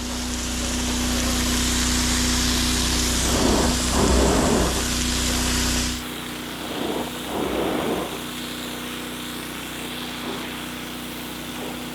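Gas-engine pressure washer running with the wand spraying water: a steady hiss over the engine's hum. About six seconds in the spray cuts off and the engine runs on more quietly.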